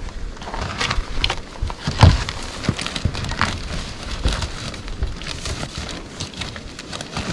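Rustling, crackling and small knocks of a fabric cover on a snowmobile sled being handled and tied down, with one louder thump about two seconds in.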